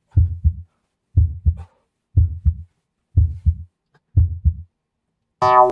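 Heartbeat sound effect: a low lub-dub double thump about once a second, six times over. Near the end comes a brief loud strained vocal sound with a steady pitch.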